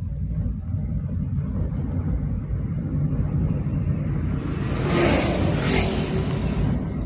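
A car's engine and tyres give a steady low rumble, heard from inside the cabin. About five seconds in, an oncoming jeep passes close by, a brief swell of noise that fades.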